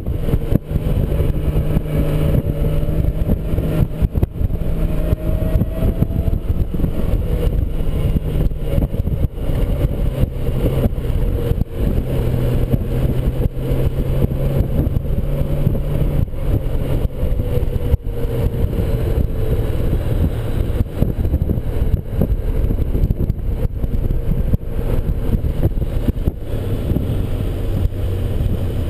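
Touring motorcycle's engine running at a steady cruise with rushing, buffeting wind noise on the microphone; the engine note drops a little about halfway through and again near the end.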